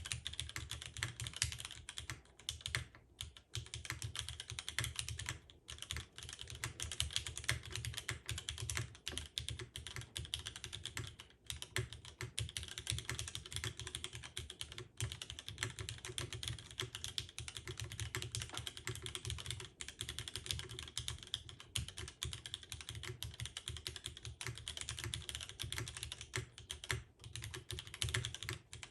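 Steady hand typing on a mechanical keyboard with lubed and filmed vintage Cherry MX Black linear switches, broken in to sound gentle and not scratchy, under GMK keycaps on an aluminium plate, O-ring mounted with no foam. A dense run of keystroke clacks with a few brief pauses.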